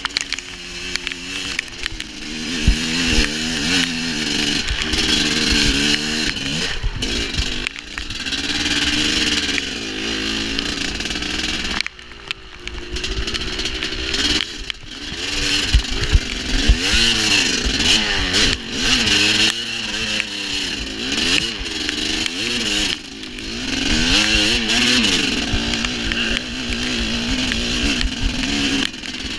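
Dirt bike engine being ridden hard, heard close up from the rider's position, its pitch rising and falling again and again with the throttle. It dips briefly about twelve seconds in.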